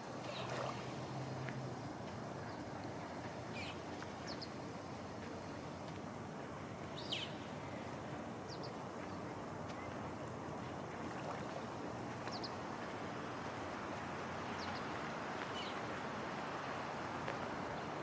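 Steady beach ambience of surf and breeze, with short, high bird chirps every two seconds or so.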